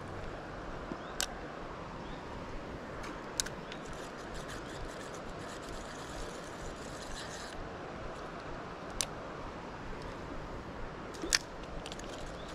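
Steady rush of flowing stream water, with four sharp clicks scattered through it from a spinning reel being worked while a lure is reeled in.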